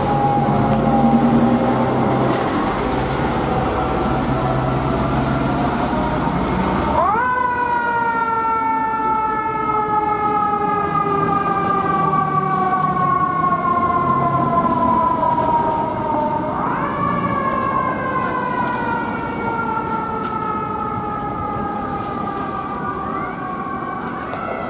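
Fire truck siren winding up sharply and then winding slowly down, three times: about 7 seconds in, about 16 seconds in, and near the end. Under it runs the engine rumble of the apparatus pulling away.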